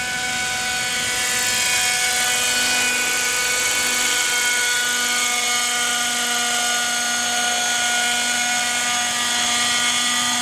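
Vintage Kalt Baron 50-size RC helicopter's OS .50 two-stroke glow engine and rotor running at a steady speed, a constant buzzing whine. It builds slightly over the first second or two and then holds level.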